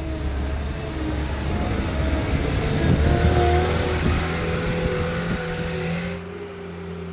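Caterpillar skid steer loader's diesel engine running as the machine drives off across bare dirt, a steady rumble with a few held tones that is loudest a few seconds in and drops off near the end as it moves away.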